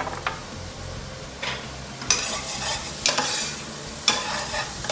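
Freshly added chopped onions sizzling in hot oil in a hard-anodised pot while a spatula stirs them. The sizzle swells with a scrape at each stir, about once a second from a second and a half in, after a couple of sharp clicks right at the start.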